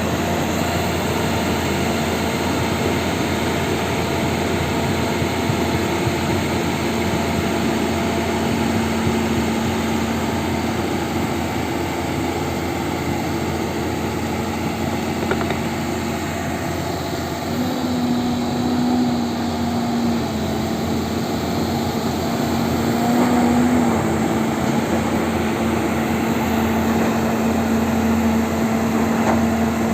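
Excavator's diesel engine running steadily, its pitch rising briefly twice in the second half.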